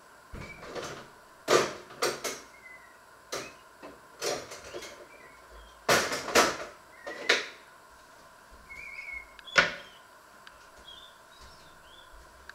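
Scattered knocks and clatters of kitchen handling, about ten sharp ones, the loudest near the middle and about two-thirds through, as things are moved and set down. Faint bird chirps sound in the background between them.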